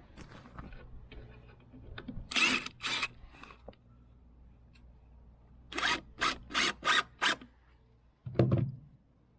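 A run of short scrapes or scuffs: two, then five in quick succession, followed by a heavier low thump near the end.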